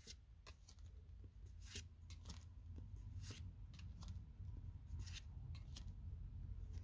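Yu-Gi-Oh trading cards handled and flipped through one by one: faint, irregular flicks and slides of card against card.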